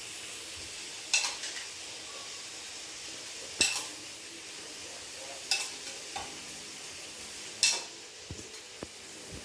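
Prawns sizzling in hot oil and spice paste in a wok, with a spatula stirring and knocking against the wok four times, about every two seconds.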